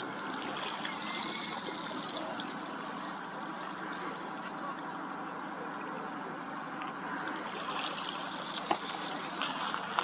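Steady rushing, water-like noise with a faint low hum, and a few faint ticks near the end.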